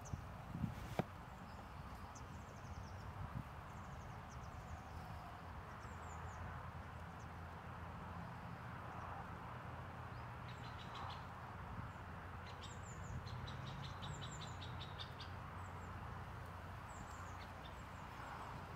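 Small birds calling in scattered short, high chirps, with rapid high trills in the second half, over a steady low outdoor rumble. A single sharp click comes about a second in.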